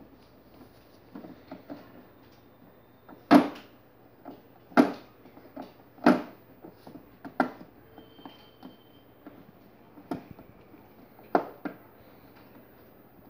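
Sharp hard-plastic knocks and clicks as a screwdriver drives screws through a clear plastic windshield into a ride-on toy car's plastic body. The three loudest knocks come a little over a second apart in the middle, followed by a few lighter clicks.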